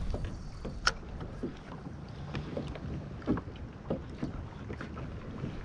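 Water lapping against a plastic kayak hull, with a few light knocks and clicks from the boat over a low rumble of wind on the microphone.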